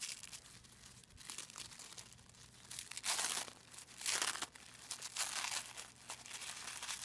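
Tissue paper crinkling and rustling as it is unwrapped by hand, in a run of rustles with the loudest about three and four seconds in.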